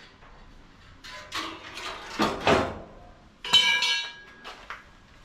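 Metal hood-latch parts and sheet metal being handled: a few scrapes and clanks, then one sharp clank that rings briefly about three and a half seconds in.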